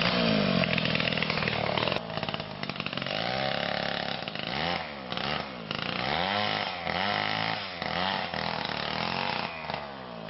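Chainsaw cutting through a felled sago palm trunk. The engine runs at high revs, then its pitch repeatedly sags and recovers as the chain bites into the wood.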